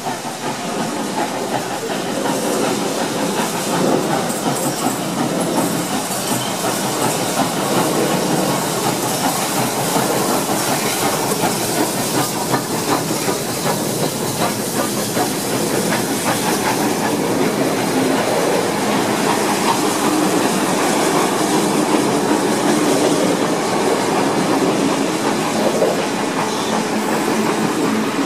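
Steam locomotive 3642 and its train of wooden passenger carriages passing close by, with steam hiss and a steady clatter of carriage wheels over the rail joints.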